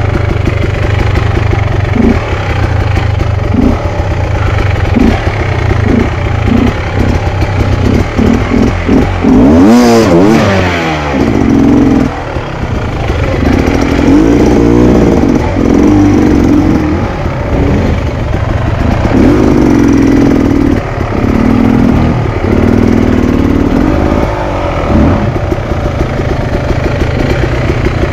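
Enduro dirt bike engine revving in a series of short throttle blips, then one rev that climbs and falls about ten seconds in, followed by longer, repeated revs held under throttle.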